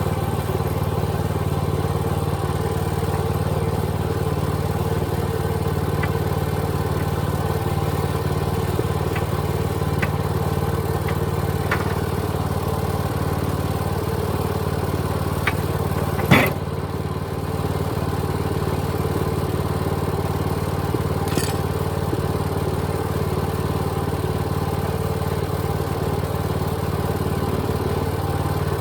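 An engine running steadily at idle, with a few faint ticks and one sharp knock about sixteen seconds in.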